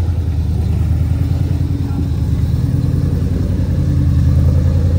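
Vehicle engine running steadily under way, a low drone with rapid firing pulses, getting a little louder near the end.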